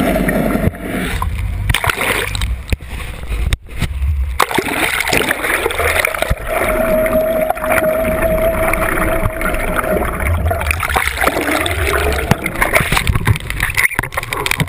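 Water rushing and gurgling past a camera towed underwater behind a sport-fishing boat, with the boat's engine and propeller heard through the water as a steady hum from about six and a half to ten seconds in.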